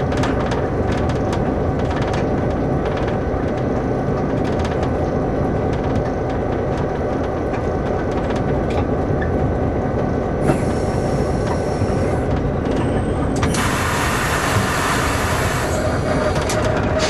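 Class MY diesel-electric locomotive running steadily under way, its GM two-stroke diesel engine droning heavily from the cab. Twice in the second half a spell of hissing rises over the engine, the longer one near the end.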